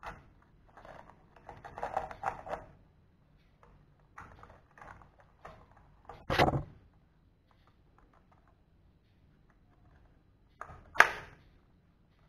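Plastic clicking and rattling as a toy bird's base is handled and a plastic birdcage is fitted over it. Two louder knocks stand out, about six seconds in and near the end.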